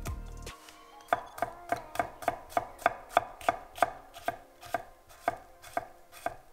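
Fujiwara Denka nakiri slicing red bell pepper on an end-grain wooden cutting board: a run of about fifteen crisp chops, around three a second, each a knock of the blade through the pepper onto the board, slowing slightly toward the end.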